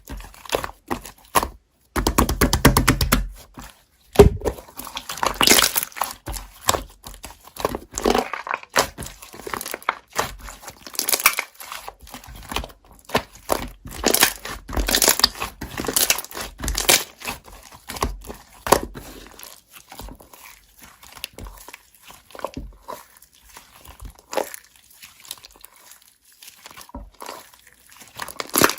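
Slime being squeezed and stretched by hand, giving irregular crackles, clicks and squishes, with a quick dense run of clicks about two seconds in.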